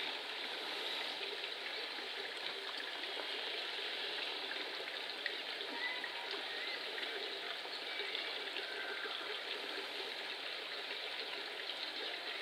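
Steady trickle of running water, even and unbroken throughout.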